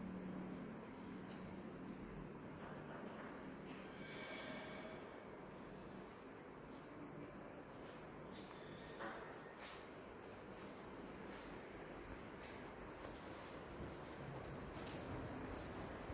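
Faint, steady, high-pitched chirring of insects, with a few soft clicks.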